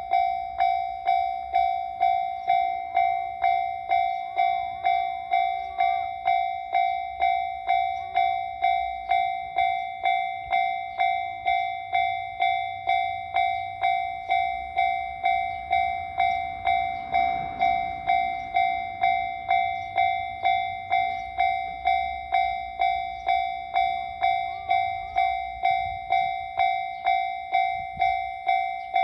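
Japanese railway level-crossing warning bell ringing 'kan-kan' over and over, about three rings every two seconds, each a single clear tone that fades before the next.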